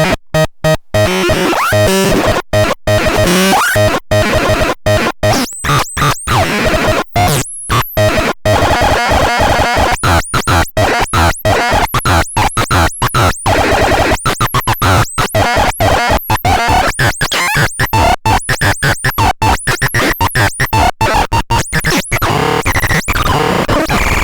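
Synthesizer making a harsh, noisy, discordant sound, chopped into a rapid irregular stutter by many abrupt cut-offs, with a few short sliding high tones.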